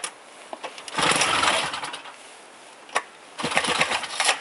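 Small engine of a motorized tow sled revving in two short bursts of about a second each, with a sharp click between them.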